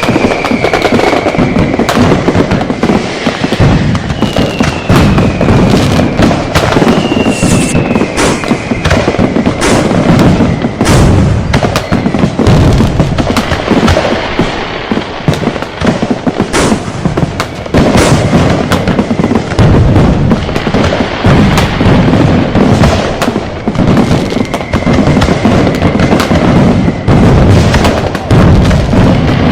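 A dense, unbroken barrage of firecrackers and fireworks: sharp cracks and booms overlapping over a steady rumble. Several times a whistle sounds, falling in pitch.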